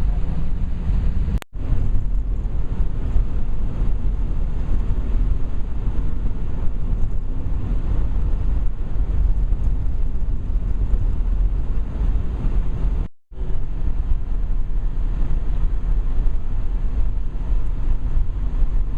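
Steady low rumble of a vehicle on the move, with two brief dropouts where the sound cuts out, about a second and a half in and again near thirteen seconds.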